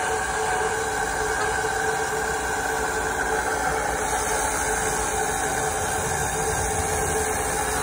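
Small electric fluid-extractor pump running steadily with a whine, sucking old power steering fluid out of the reservoir through a plastic tube into a jug.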